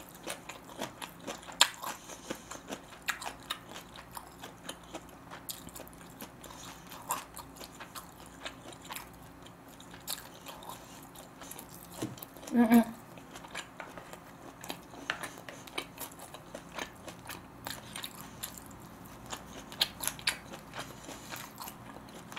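Chewing and biting of sliced smoked duck, with many small sharp mouth clicks and smacks. A brief hummed voice sound comes about halfway through, the loudest moment.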